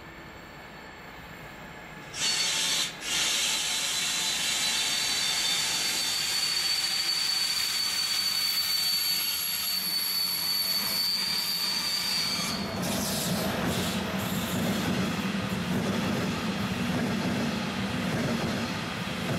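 Container freight train behind an ES 64 F4 (Class 189) electric locomotive braking to a stop. A loud, steady high-pitched squeal from the wheels and brakes starts suddenly about two seconds in and lasts about ten seconds. It then gives way to a lower steady rumble and hum as the train comes to a stand.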